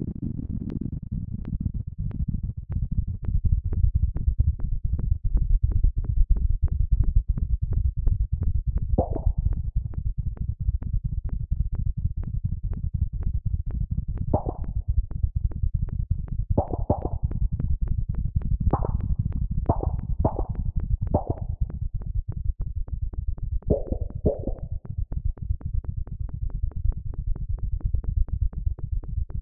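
Synthesized sonification of earthquake data: a rapid, even train of low electronic pulses, with a few short, higher tones standing out in the middle stretch. The tempo of the pulses follows the number of quakes per day, their pitch follows the average quake depth, and their loudness follows the average magnitude.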